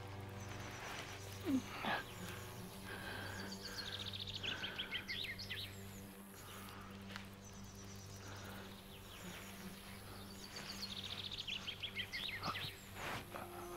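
A songbird singing a fast trill that falls in pitch, twice, several seconds apart, over a low steady hum. Two short knocks sound near the start.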